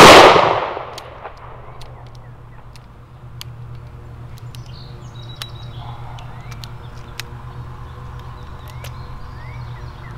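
A single shot from a Smith & Wesson Governor revolver firing a 2 1/2-inch .410 Brenneke slug, sharp and loud right at the start, ringing out over about a second. After it come only faint scattered clicks and a few bird chirps.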